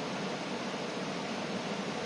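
Steady rain pattering on a tent's fabric, an even dense hiss of many small drops with no single loud impact.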